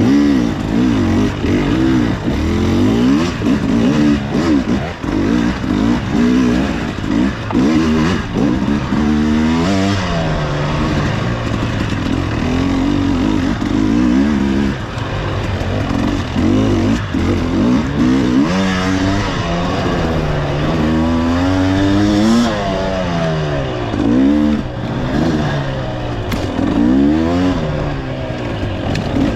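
Off-road motorcycle engine revving up and down again and again as the throttle is worked on and off over rocks, roots and tight turns, with some clatter.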